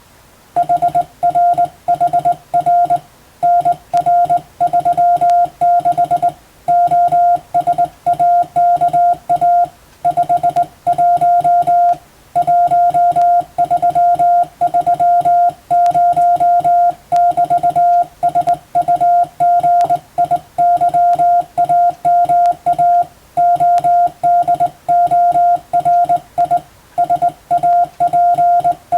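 Morse code (CW) practice tone: a steady mid-pitched beep keyed on and off in dots and dashes, with short gaps between letters and longer ones between words, starting about half a second in.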